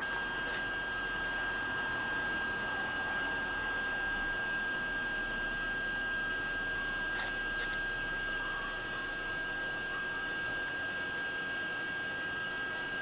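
Steady electrical hum with a thin, high, even whine, and a faint double click about seven seconds in.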